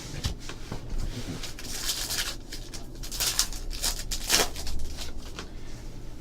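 Trading card packs and cards being handled: irregular rustling and crinkling of pack wrappers with light clicks and slides of cards, louder crinkling about two seconds in and again from about three to four and a half seconds.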